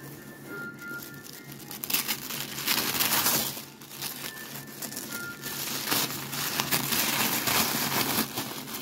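Tissue wrapping paper crinkling and tearing as it is pulled off a cardboard box by hand, in uneven bursts that are loudest about two to three and a half seconds in and again from about six to eight seconds in.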